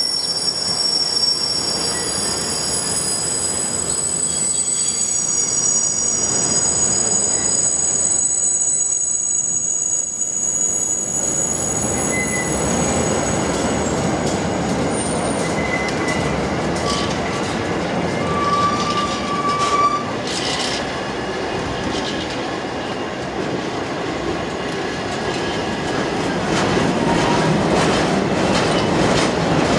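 Freight wagons of a passing train rolling on the rails, first covered double-deck car carriers and then empty flat wagons. High thin wheel squeal runs through the first half over a steady rumble and clatter of wheels. The rumble and clatter grow louder near the end.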